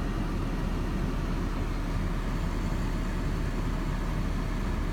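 BMW E39 engine idling steadily with a low, even rumble, running after a fresh water pump and thermostat replacement with its temperature holding in the middle and no overheating.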